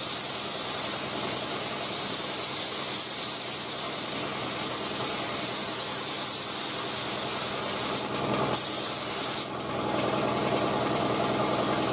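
Binks Model 7 siphon-feed spray gun hissing steadily as it lays down a wet final coat of single-stage acrylic urethane at about 25 psi at the gun. The spray cuts off about eight seconds in, gives one more short burst, and then stops, leaving a lower steady machine hum underneath.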